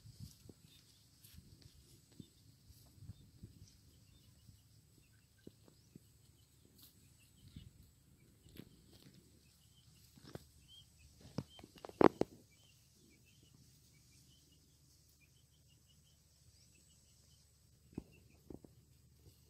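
Faint rustling and handling noise from moving through ripe rice plants, with scattered knocks; the loudest is a sharp thump about twelve seconds in. Faint high chirping runs through the middle.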